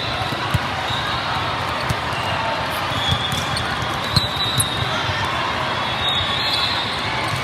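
Din of a big volleyball hall with many matches going on: sharp smacks of volleyballs being hit and bouncing on the courts at irregular moments, scattered short high-pitched squeaks, and a steady hum of voices.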